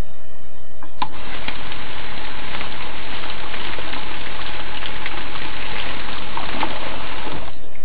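Liquid pouring through a container spout: a steady splashing rush that starts suddenly about a second in and stops suddenly near the end.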